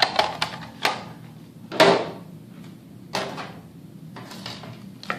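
Thin plastic armor pieces being handled and set down on a table: a series of knocks, clacks and rustles, the loudest about two seconds in.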